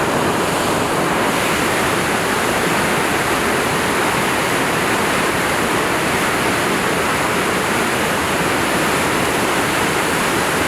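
Dynjandi waterfall crashing down, a loud steady rushing roar of falling water.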